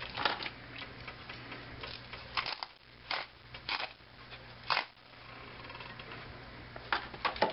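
Salt and pepper being shaken from a metal-topped shaker: a string of short, sharp ticks, irregularly spaced, some in quick clusters.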